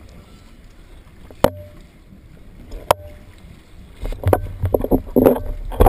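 Water sloshing and splashing at the surface beside a dive boat's boarding ladder, heard muffled through the camera's underwater housing. Over a low rumble come two sharp knocks about a second and a half apart. From about four seconds in the water turns to loud, irregular churning and splashing with knocks.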